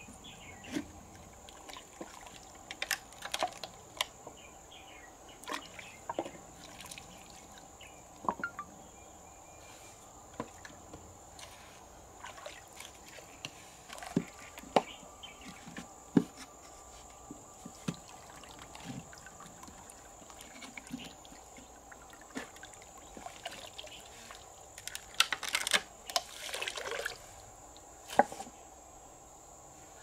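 Hands splashing and sloshing in shallow river water while rinsing freshwater mussels, with scattered sharp clicks and knocks of the shells and a longer, louder stretch of splashing near the end.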